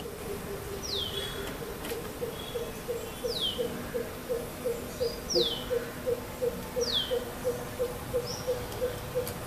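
Greater coucal calling a long, even series of deep hoots, about three a second. Over it, another bird gives short high whistles that fall in pitch, one about every second and a half.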